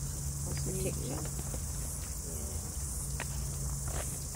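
A steady high-pitched chorus of insects, with faint voices in the distance.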